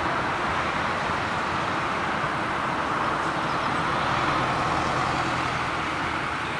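Jet engines of a Japan Airlines Boeing 787 Dreamliner (GEnx turbofans) running steadily as the airliner sits lined up on the runway for takeoff, heard from a distance as an even rushing hum.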